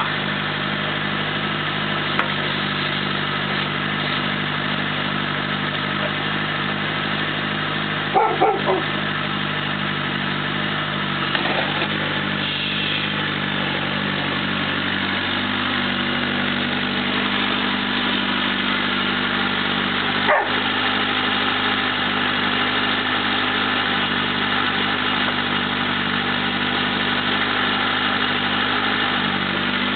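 Mini excavator's diesel engine running steadily as the hydraulic arm digs and lifts a bucket of soil. Three short sharp sounds come about eight seconds in, and another near twenty seconds.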